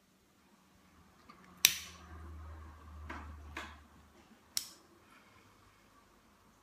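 A plastic lighter being struck, with sharp clicks, the loudest about a second and a half in and others around three and a half and four and a half seconds. Between them the lit flame gives a low rumble for a couple of seconds.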